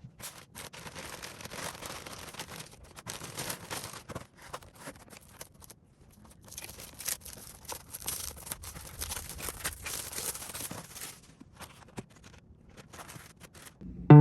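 Packaging being handled and opened: irregular rustling and crinkling in two longer stretches with a brief pause between them, then a few light clicks and handling noises near the end.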